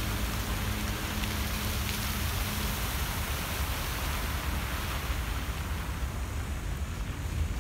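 Fountain water jets spraying and splashing down into the pool, a steady rain-like hiss over a low rumble. The splashing thins out near the end as the jets die down, and the last faint notes of the show's music fade out a couple of seconds in.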